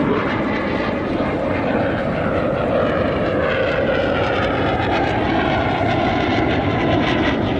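Jet aircraft passing overhead: a loud, steady engine roar with faint tones drifting slowly in pitch.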